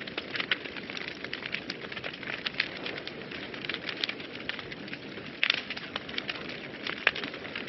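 Wood fire burning in a fireplace, crackling and popping steadily over a low rush of flame, with a couple of louder pops about five and a half and seven seconds in.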